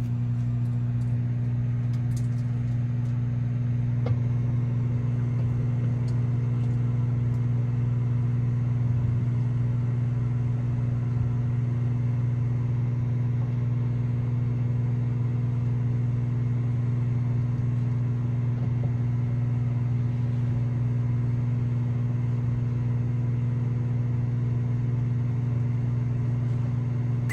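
Microwave oven running a bag of popcorn on a 30-second setting: a steady low mains hum that holds unchanged and cuts off at the end when the cycle finishes.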